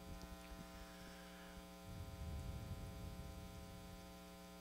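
Faint steady electrical mains hum, a stack of even steady tones, with a slight low rumble swelling about two seconds in.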